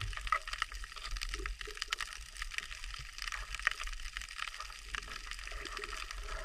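Sea water moving, with a dense crackle of many small clicks and a steady low rumble underneath.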